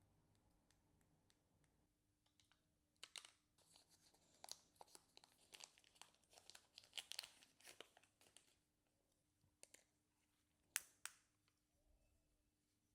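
Packaging being torn open and crinkled: about five seconds of crackly rustling, then two sharp clicks a couple of seconds later.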